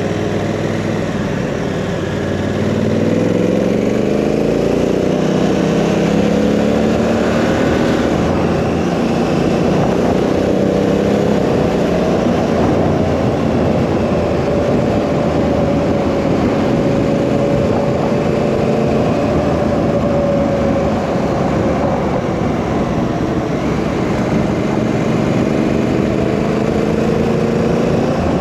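Honda Africa Twin CRF1000's parallel-twin engine accelerating, its pitch rising over the first few seconds, then running at a steady cruising speed under a constant rush of wind and road noise.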